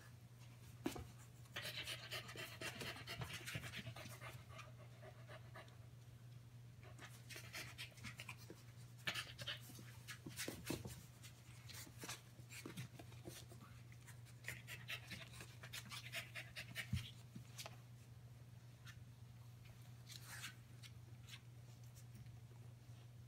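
Five-week-old Keeshond puppies wrestling with their mother: scattered clicks and scuffles of paws and claws on the floor, with two longer stretches of small puppy noises. A steady low hum runs underneath.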